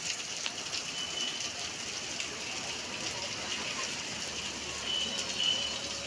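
Rain falling steadily on a street: an even hiss of rain with many small ticks of drops striking wet surfaces.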